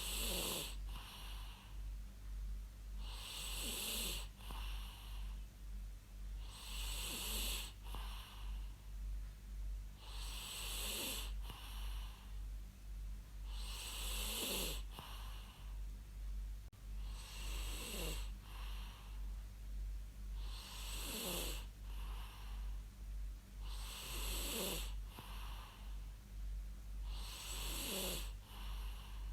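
A person snoring in a steady rhythm, about one breath every three and a half seconds, each snore falling in pitch, over a constant low hum.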